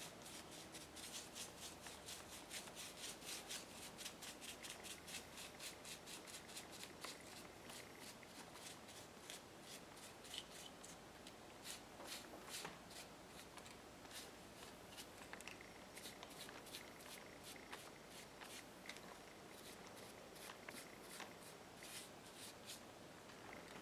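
Faint scratchy brushing: a paintbrush stroking varnish onto a carved wooden figure in quick light strokes, thinning out to sparser strokes after about eight seconds.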